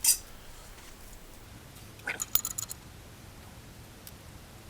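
Sharp metallic clicks and clinks of hand tools being handled on an engine: one click at the start, then a quick cluster of clinks about two seconds in.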